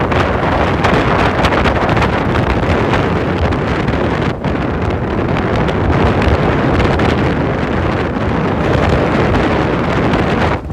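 Wind buffeting the microphone: a loud, steady rush with a brief dip about four seconds in.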